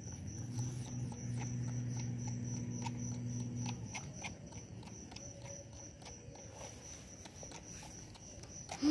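Baby macaque sucking milk from a feeding bottle: soft, irregular clicks, over a steady high insect trill. A low steady motor hum runs under it and stops about four seconds in.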